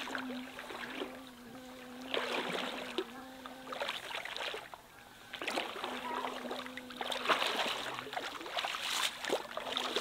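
A person wading through a shallow river, legs sloshing and splashing the water in bursts of strides.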